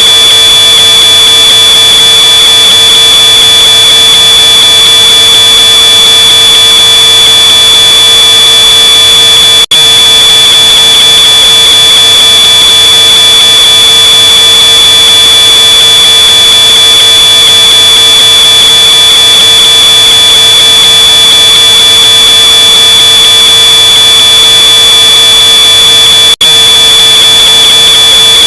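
Smoke alarm sounding one continuous high-pitched piezo tone, amplified to the point of heavy clipping distortion. It cuts out for an instant twice, about ten seconds in and near the end.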